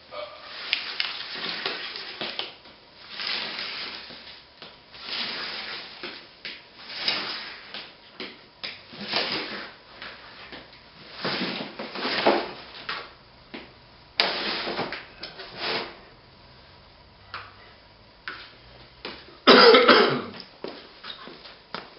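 A roll of sheet vinyl flooring being unrolled across a concrete floor, in a series of scraping, rustling pushes every couple of seconds, the loudest near the end.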